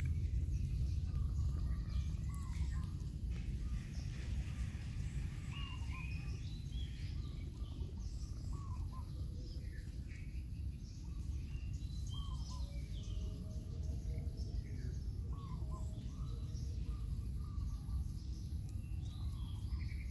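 Outdoor ambience: a steady low rumble with birds chirping on and off, and a faint constant high-pitched tone.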